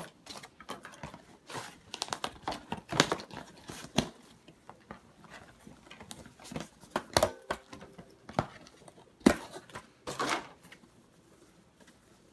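Toy packaging handled as a satin apron is pulled free of its cardboard backing: irregular rustling and crinkling with sharp snaps and clicks, going quieter near the end.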